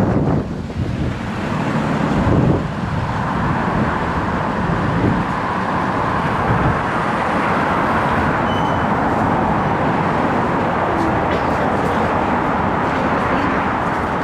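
Wind buffeting the microphone in gusts for the first couple of seconds, then steady wind and road noise of an electric scooter riding along a city street in traffic.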